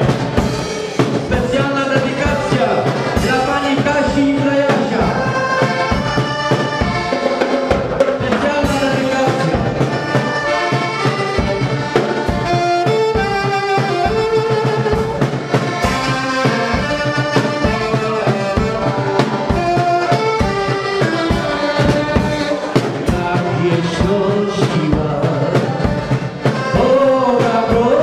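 Folk wedding band playing an instrumental passage between sung verses, a saxophone carrying the melody over a steady beat.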